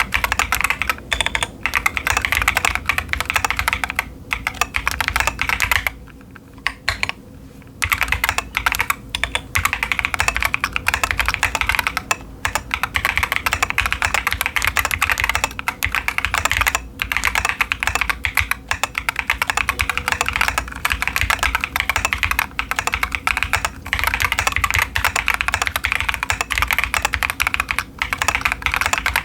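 Continuous typing on a stock Keychron Q10 mechanical keyboard with TTC Chaotic Panda tactile switches and SA-profile doubleshot ABS keycaps, a dense stream of keystrokes with one short pause about six seconds in.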